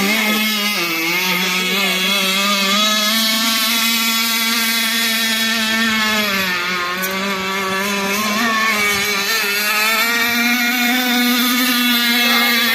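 Radio-controlled model catamaran boat's small engine running at speed, a steady buzzing drone whose pitch dips briefly about six seconds in.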